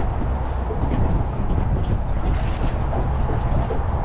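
Wind buffeting the microphone on an open boat: a steady, uneven low rumble with no clear pitch, and a few faint ticks.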